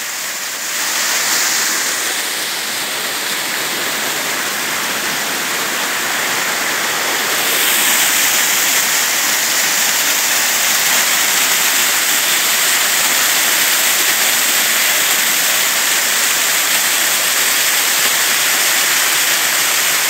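Small forest waterfall, white water rushing steadily down over rocks, growing louder about a third of the way in.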